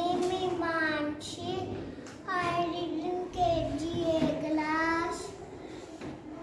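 A young girl's voice reading aloud in a sing-song chant, drawing each sound out into long, wavering held notes in short phrases.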